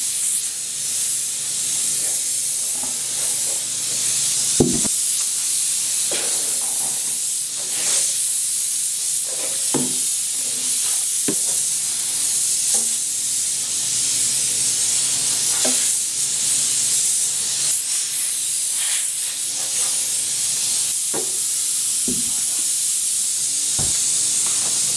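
Kitchen tap running hot water into the sink while plastic fridge bins are scrubbed, with the steady rush of water broken by occasional knocks of the bins against the sink.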